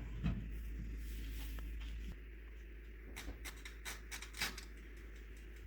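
Faint scratches and a few short clicks over a low steady hum.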